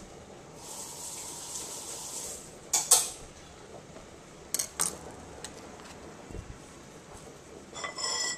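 Dishes and utensils handled on a kitchen counter: a soft rustle, then a sharp clatter about three seconds in, two quick clicks, and a ringing clink of a plate near the end.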